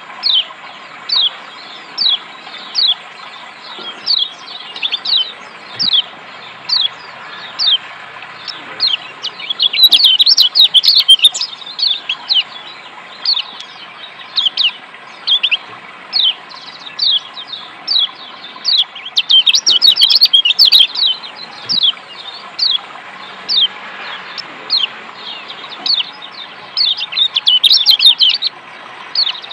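Lombok yellow white-eyes (kecial kuning) calling: a string of sharp, falling chirps, one or two a second, breaking into louder rapid runs about ten, twenty and twenty-eight seconds in, over a steady hiss of running water.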